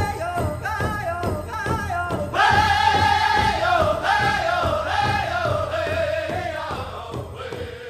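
Intro music: a singing voice over a steady beat, fading out near the end.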